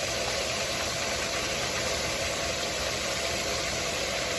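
Fish frying in hot oil, a steady sizzle, with a steady mechanical hum underneath.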